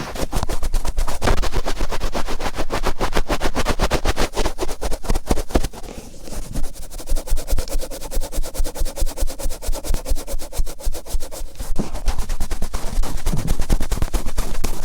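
Cotton swab rubbed firmly round and round in the right ear of an ear-shaped microphone: a fast, dense run of scratchy rubbing strokes. From about six seconds in to about twelve the strokes go softer and duller, then turn sharp and scratchy again.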